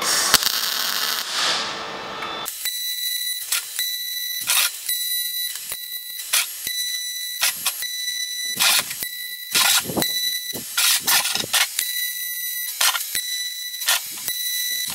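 MIG welding on steel tube: a continuous weld for the first couple of seconds, then a string of short crackling tack welds, each a fraction of a second, at irregular intervals. A steady high-pitched whine runs beneath them.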